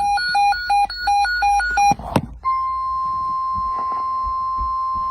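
A rapid string of short electronic alert beeps alternating between two pitches, cut off by a click about two seconds in. Then a steady single-pitch alert tone near 1 kHz, the NOAA Weather Radio warning alarm tone.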